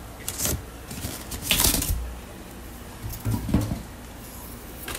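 Cardboard and styrofoam fish shipping box being opened: three short bursts of scraping and rustling, the loudest about a second and a half in.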